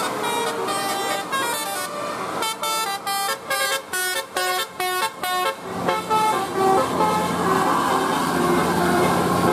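Bus telolet horn, a multi-trumpet Basuri musical air horn, playing a melody of steady horn notes. In the middle it plays a run of quick, clipped notes, and from about six seconds a low steady hum runs under the tune.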